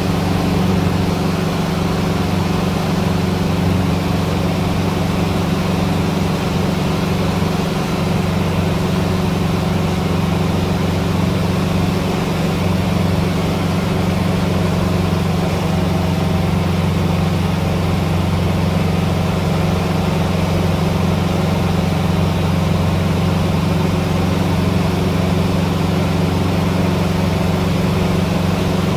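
Cessna 150's Continental O-200 four-cylinder engine and propeller running steadily in flight, heard from inside the cabin as an even drone.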